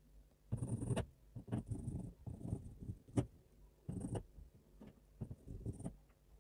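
Close-up sound of pencil lead scratching on paper in short shading strokes, coming in bursts of about half a second with brief pauses between, and a sharp tick of the pencil a little after three seconds in.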